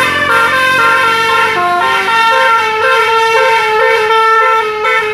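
Bus 'telolet basuri' musical air horn playing a melody of stepped notes, several horn tones sounding at once. It cuts off suddenly near the end.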